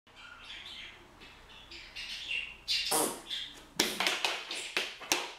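Quick slaps and taps of a young Rhodesian ridgeback's paws and a person's hands on a wooden parquet floor during rough play, about three a second from about three seconds in. They follow a couple of seconds of faint high-pitched squeaky sounds.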